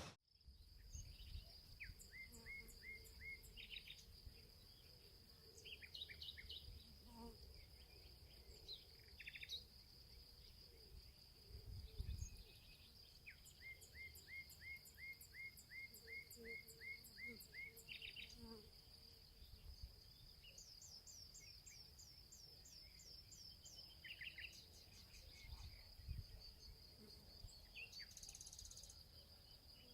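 Faint rural ambience: a steady, high-pitched insect drone with birds calling over it in short repeated chirps and trills, and a few brief low rumbles.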